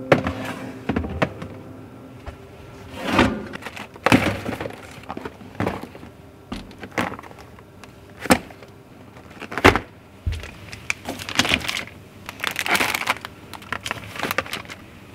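Cardboard food boxes and bagged packages set down and slid into plastic storage baskets: a run of irregular sharp knocks and taps, with rustling of cardboard and plastic wrap in between, most of it near the end.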